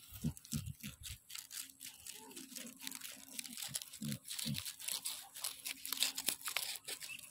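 A puppy gnawing a bone: a steady run of crunching, tearing clicks, with two short low grunting sounds about four seconds in.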